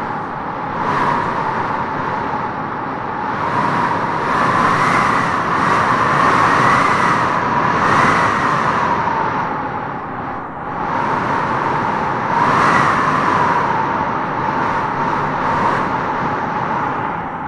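Wind blowing in gusts: a steady rush with a whistling tone that swells and eases in slow waves, dipping briefly about ten seconds in before rising again.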